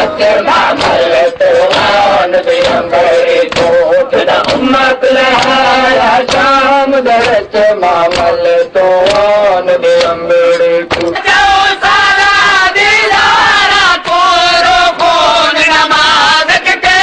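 Male voices chanting a Muharram lament (noha) in a loud, rhythmic call, amplified through a microphone, over sharp hand slaps of chest-beating (matam). The sound changes abruptly about two-thirds of the way through, as a new group takes up the chant.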